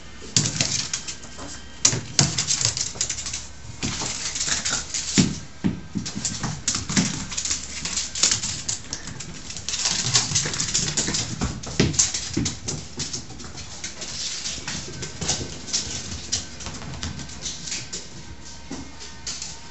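Jack Russell terrier scampering about at play, its claws clicking and scrabbling on a hardwood floor in irregular bursts, with occasional dull knocks.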